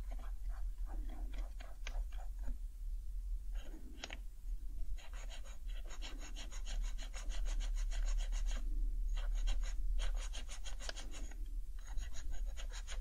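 Alcohol pad scrubbed over the keycaps of a Happy Hacking Keyboard Type-S. It starts with a few scattered strokes, then from about five seconds in turns into fast, continuous rubbing with many small ticks, with brief pauses near nine and twelve seconds.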